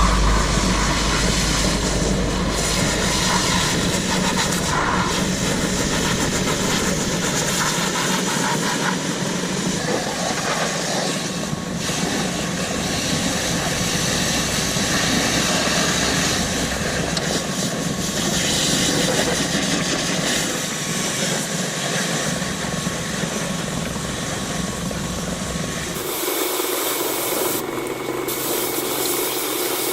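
Pressure washer spraying water: a loud, steady hiss of the jet with the washer's engine running under it, rinsing mud off farm equipment. The low rumble eases off near the end.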